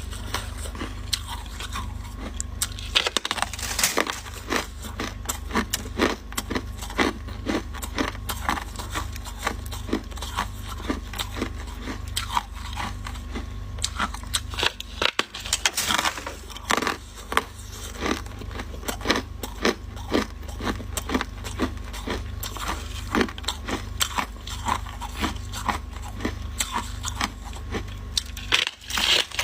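Close-miked biting and chewing of freezer frost and refrozen ice: a dense, irregular run of crisp crunches and crackles over a steady low hum.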